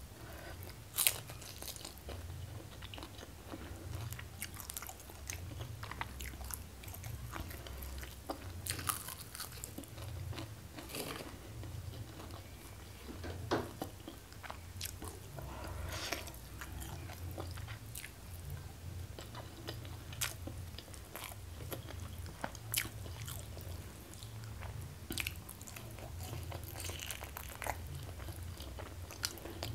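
A person chewing and biting food close to the microphone, with sharp crisp bites scattered irregularly through, the sharpest about a second in, over a steady low hum.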